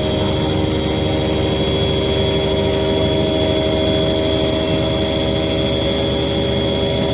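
Electric motorcycle's drive motor and rear tyre spinning a dynamometer roller at about 95 km/h under test: a steady whine of several held tones over constant rolling noise.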